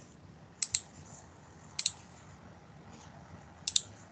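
A few sharp clicks, two of them in quick pairs, over a faint steady low hum.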